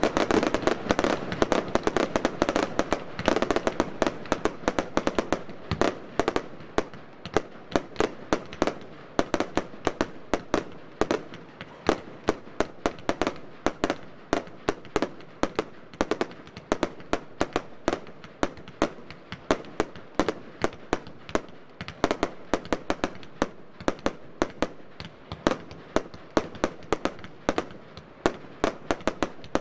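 Wolff Vuurwerk "Blue Night Fire" F2 compound firework battery firing: shot after shot of sharp reports from launches and aerial bursts, several a second, densest and loudest in the first few seconds.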